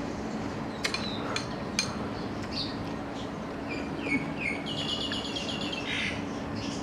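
Small birds chirping in the background: a few short high chirps about four seconds in, then a brief rapid trill. Before that come three sharp light clicks, with a faint steady hum underneath.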